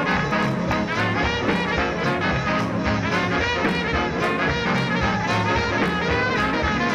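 Up-tempo swing jazz with trumpets and trombones over a steady, quick beat.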